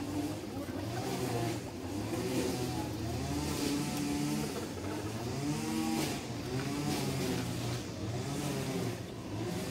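A motor vehicle's engine revving up and down repeatedly, its pitch rising and falling every second or two.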